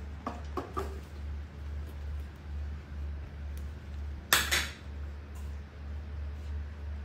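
A few light knocks, then one louder clatter of hard objects about four seconds in, over a steady low hum.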